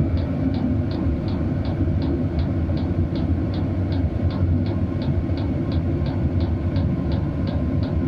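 Chinese diesel air heater running, a steady low drone from its burner and blower, with the fuel pump ticking evenly about three times a second as it meters diesel to the burner.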